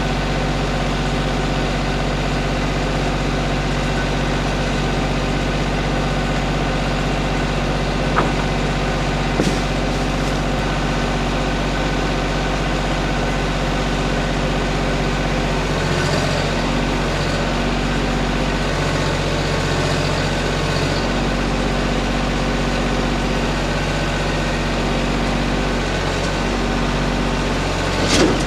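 Compact tractor's engine running steadily near idle. Its note wavers from about halfway to two-thirds of the way through, as the front-end loader hoists an aluminum boat on a chain. A few light metallic clinks.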